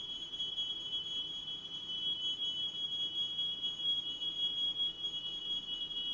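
Smoke alarm sounding with one steady, high-pitched tone, set off by smoke from a room fire.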